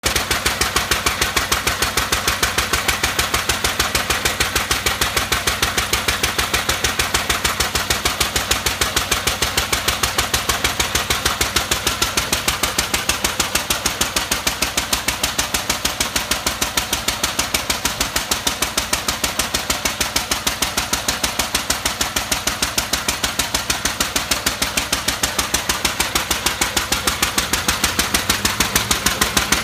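Single-cylinder Lister Junior A stationary engine running at a steady speed, with an even, regular firing beat that stays unchanged throughout. The engine is water-cooled from its tank and running smoothly.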